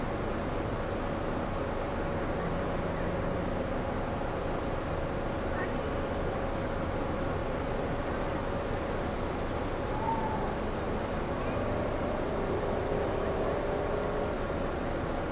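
A cargo ship's machinery running steadily alongside the lock wall: a constant drone with a steady mid-pitched hum. Short high chirps come and go over it from about five seconds in.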